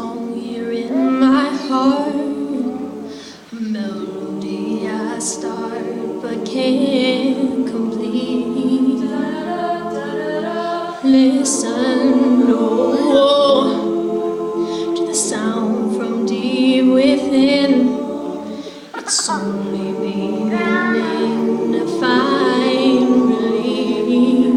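Mixed a cappella group singing in close harmony, with sustained chords and a lead line, and vocal percussion clicks and hisses recurring every few seconds.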